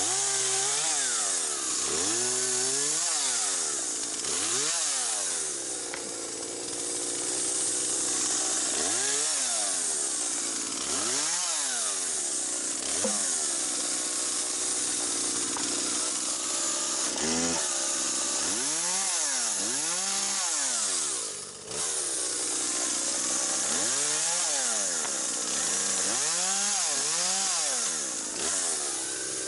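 Petrol chainsaw cutting branches, its engine revving up and falling back over and over as each cut is made, with a short drop in loudness about two-thirds of the way through.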